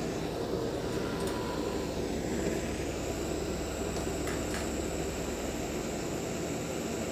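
Pragati LPG heating torch burning with a steady rushing noise, its flame played into a small crucible to heat copper balls for melting.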